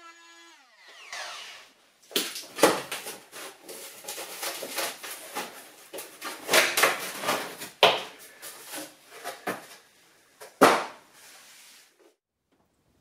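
Knocks, cracks and scrapes of a wooden kitchen base cabinet being taken apart, its back panel being worked loose, in an irregular run with several sharp loud cracks, the loudest about ten and a half seconds in. The noise stops shortly before the end.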